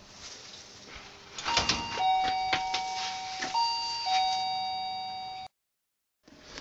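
Two-tone ding-dong doorbell chime rung twice, a higher note then a lower one each time, with a few sharp clicks as it starts. The ringing chime cuts off suddenly near the end.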